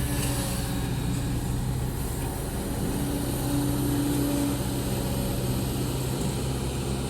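Heavy diesel machinery engine running steadily at an even pitch.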